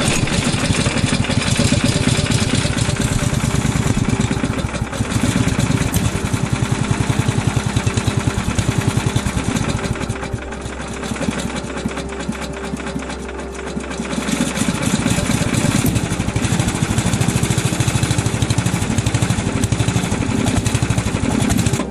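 Small air-cooled single-cylinder engine of a motor-dog snow tractor running with a fast, even firing beat. It eases to a quieter, lower-revving run about ten seconds in and picks up again around fifteen seconds.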